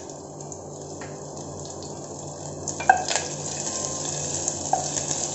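Chopped green chillies and cumin seeds sizzling in hot ghee in an enamel pot, with a plastic spatula stirring them. A sharp knock of the spatula against the pot about three seconds in, and the sizzle grows a little louder.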